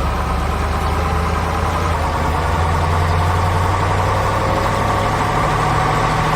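Heavy machinery engine running steadily at idle, a construction-vehicle engine sound.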